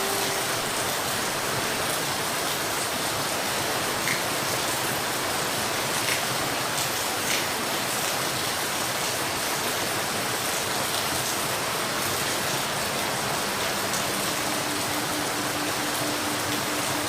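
Steady rain falling, an even hiss with a few sharper ticks of single drops. A faint low hum comes in near the end.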